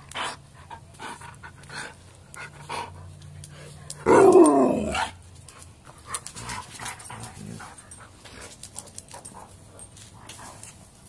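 A dog panting and huffing in quick breaths while tugging on a toy, with one loud, wavering growl about four seconds in that lasts about a second.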